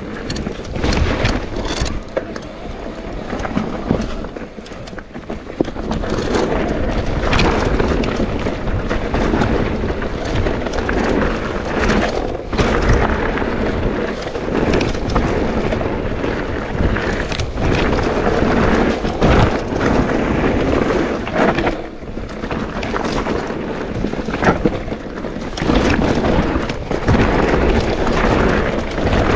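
Mountain bike riding down a dirt bike-park trail: a steady rumble of tyres over rough ground with frequent knocks and rattles as the bike hits bumps, and wind buffeting the microphone.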